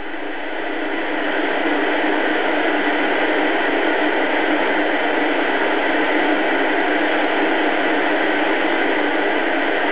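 Short-wave band noise from a Philco-built BC-312G communications receiver: a steady hiss of static with no voice, swelling a little over the first second or two and then holding steady.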